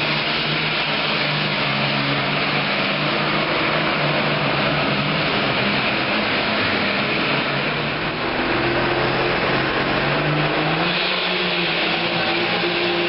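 Super Farm class pulling tractor's turbocharged diesel engine running loud and steady under full power, its pitch shifting in the last few seconds.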